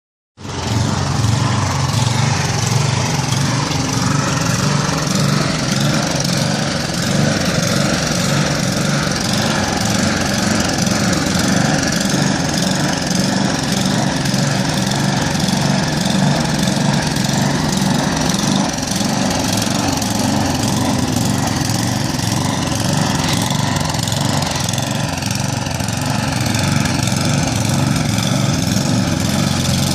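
Snow blower's small engine running steadily while it clears snow from a sidewalk.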